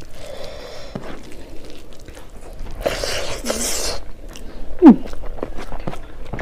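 Close-miked eating by hand: fingers squishing and mixing rice on a plate with small clicks, a breathy rush as a handful goes into the mouth, then chewing. About five seconds in comes a brief sound that drops quickly in pitch, the loudest moment.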